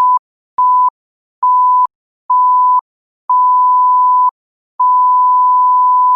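An electronic beep tone, one steady pure pitch, sounding six times with short silences between; each beep is longer than the last, from a brief blip to a final one held about a second and a half.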